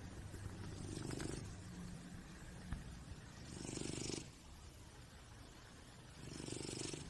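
Sleeping cat snoring: three slow, rasping breaths about two and a half seconds apart.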